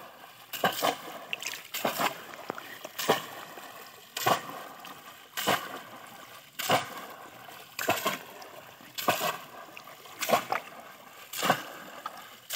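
Bamboo cone fish traps plunged again and again into shallow water, a splash about every second and a bit, with the water sloshing between strikes.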